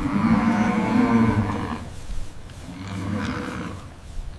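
Cattle mooing twice: a long low moo lasting about two seconds, then a shorter one about a second later.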